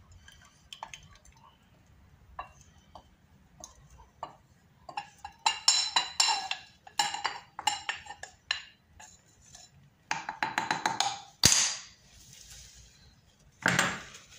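Glass clinking: a glass bowl and a small glass jar knocking together in short, ringing clinks, in two clusters, followed by one sharper knock.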